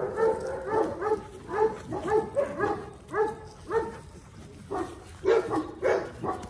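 Doberman whining in short rising-and-falling cries, about two a second, while the dogs are mating, with a few stronger cries near the end.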